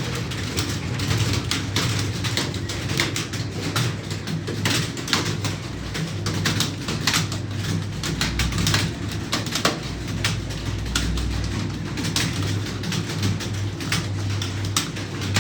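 Many computer keyboards being typed on at once, a dense, irregular patter of key clicks over a low steady hum.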